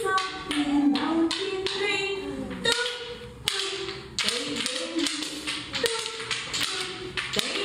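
Repeated sharp taps in a steady beat, as toddlers and their teacher tap small hand-held objects in a rhythm game, with a woman's voice singing over them.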